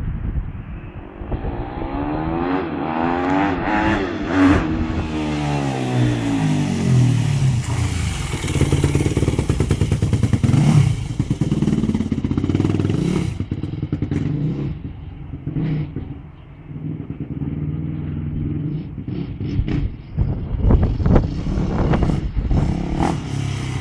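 Yamaha YZ250 four-stroke motocross bike with an Akrapovic exhaust running, its engine note rising and falling over the first several seconds, then running unevenly with some sharp knocks near the end.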